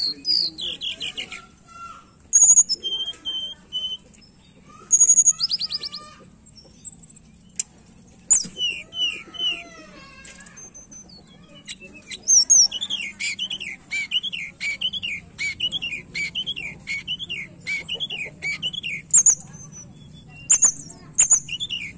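Hill blue flycatcher (tledekan gunung) singing: a varied run of clear whistles and quick trills, then from about halfway a long series of rising-and-falling notes repeated about twice a second, with a few sharp clicks in between.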